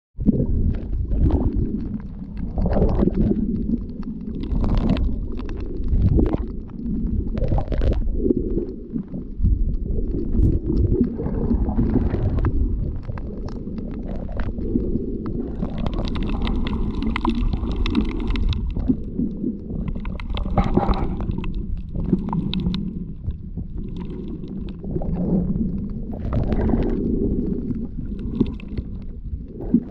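Shallow-water surge heard underwater: a continuous muffled low rumble, with louder hissing swells every few seconds as the water moves over the reef.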